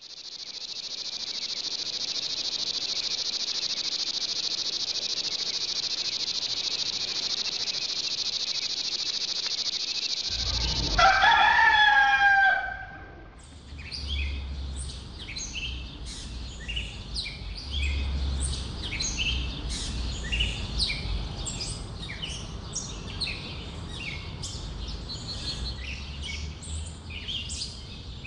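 A steady high-pitched hiss for about ten seconds, then a rooster crows once, loudly, falling in pitch at the end. Small birds chirp repeatedly after it, over a low rumble.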